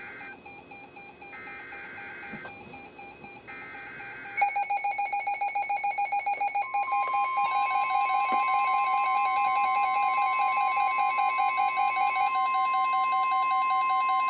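NOAA Weather Radio alert ahead of a flood warning: the end of the first and then two more one-second EAS/SAME data bursts, shrill digital screeches. About four seconds in, several weather radio receivers go off together in a jumble of pulsing electronic beeps. About two seconds after that the NWR warning alarm tone starts, one long steady tone that holds.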